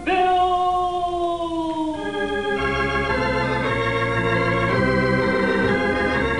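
Organ music: a held note that slides slowly down in pitch, then a full sustained chord with bass notes from about two and a half seconds in.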